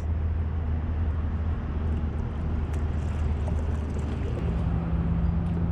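A steady low mechanical hum, with a second, higher steady tone joining about two-thirds of the way through.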